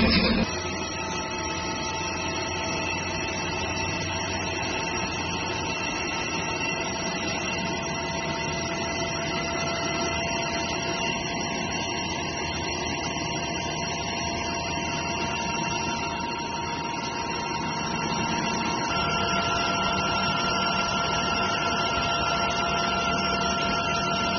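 CNC lathe running while turning and boring metal parts: a steady hum and whine with a hiss of coolant. A new tone joins about a third of the way in and another near the end, as the cut changes.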